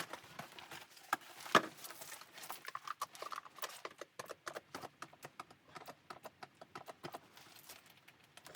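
A quick, irregular run of light clicks and knocks, with one louder knock about a second and a half in.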